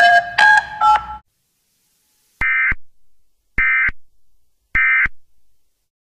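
A quick run of touch-tone (DTMF) beeps, then three short, identical bursts of EAS end-of-message data tones about a second apart, closing the alert.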